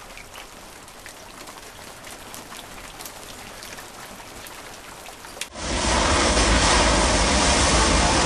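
Light rain falling and dripping off a canopy edge, with scattered drop ticks. About five and a half seconds in, a much louder steady rushing noise cuts in abruptly.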